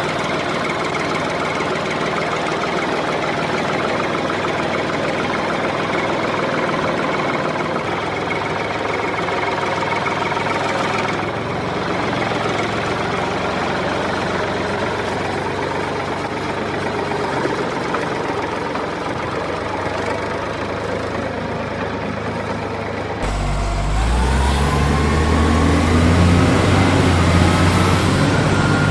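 An engine or motor running steadily. About 23 seconds in it cuts to a louder, deeper run, with a whine that rises in pitch.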